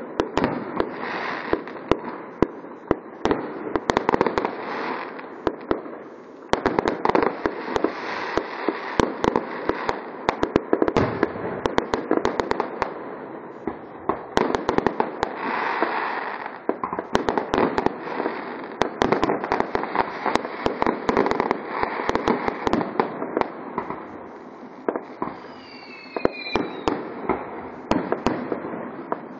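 Fireworks display: a rapid, near-continuous barrage of bangs and crackling from aerial shells. Near the end, whistles fall in pitch.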